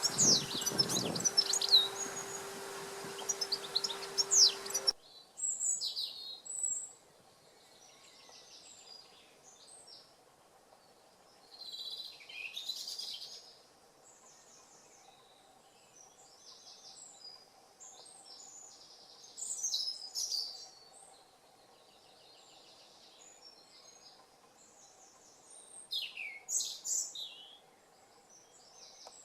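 Small songbirds singing in short high chirping phrases, a few seconds apart. For the first five seconds the song sits over a loud steady rushing noise with a low hum, which cuts off abruptly; after that only a faint hum lies under the birdsong.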